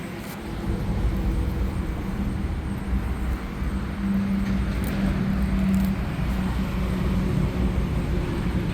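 Steady low rumble of road traffic, with a passing vehicle's engine hum growing louder about halfway through.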